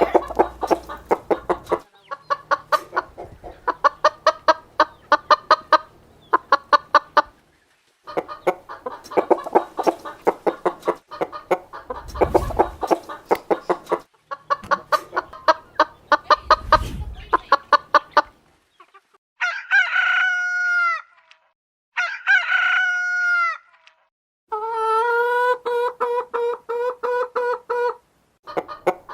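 Hens clucking and cackling in fast runs of repeated notes, broken by short pauses, for well over half the time; then a rooster crows about three times, each crow a second or two long.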